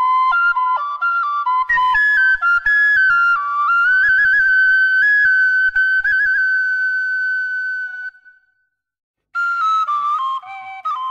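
Solo bamboo flute playing an ornamented melody in Khmer traditional style, stepping between notes and settling on a long held note that stops about eight seconds in. After about a second of silence the melody starts again with quick running notes.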